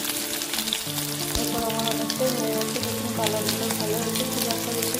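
Batter-coated chicken pieces deep-frying in hot oil, a continuous sizzle full of fine crackles, as a slotted metal spoon turns them. Background music with held notes plays underneath.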